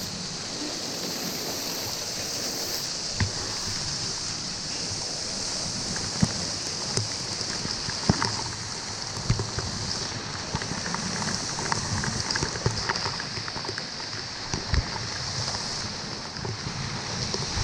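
Steady rush of a waterfall's falling water, with scattered light knocks and clicks over it.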